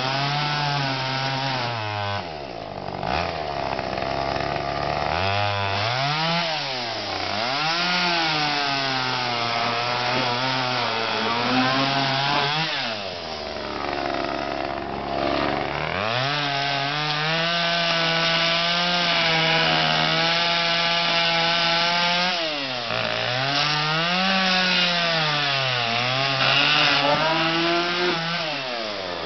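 Homelite two-stroke gas chainsaw revving and cutting through a couch's wooden frame and upholstery. The engine pitch swings up and down as it is throttled, falling back toward idle about two seconds in and again around the middle, then holding at high revs for several seconds.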